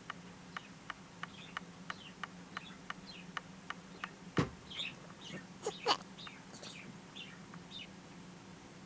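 A small pet animal sneezing and horking: a run of short, sharp little sneezes about three a second, then a few louder squeaky bursts around the middle.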